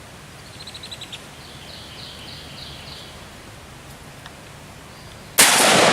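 Birds chirping outdoors, then about five and a half seconds in a single loud AR-15 rifle shot whose echo trails off.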